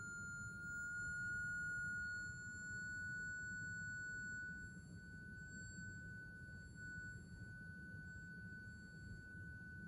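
A loudspeaker at the end of an open resonance tube plays a steady, pure sine tone from a signal generator. Its pitch rises slowly as the frequency is swept up toward the tube's sixth resonance. The tone is louder for the first few seconds and softer in the second half.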